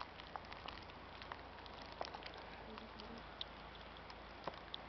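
Faint outdoor ambience: a steady low hiss with scattered soft ticks and crackles.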